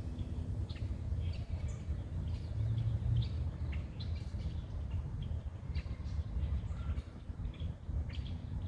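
Small birds chirping: many short, separate chirps scattered throughout, over a steady low rumble.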